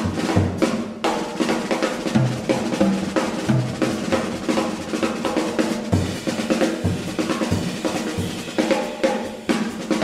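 Jazz drum kit played with sticks, a busy run of snare, tom, bass drum and cymbal strokes carrying the music, with the band's pitched instruments faint underneath and coming up near the end.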